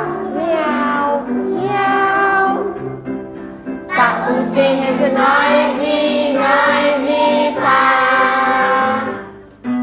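Group singing of a children's farm song over a backing track, with jingling percussion shaking on the beat.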